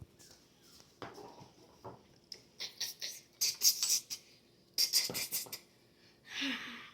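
Small hard plastic pieces clattering and rattling in two quick bursts of rapid clicks, with a few single clicks before them and a short hiss near the end.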